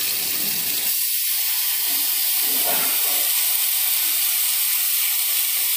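White wine sizzling and hissing steadily in a hot grill pan of prawns as it boils off and flares up in a flambé.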